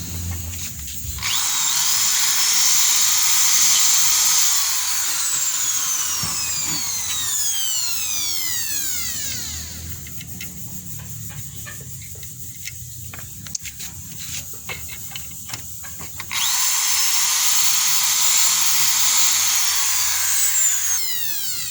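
Electric power tool run twice: its motor switched on with a high-pitched whir, then switched off and winding down in falling pitch, with a few light clicks and knocks in the pause between the two runs.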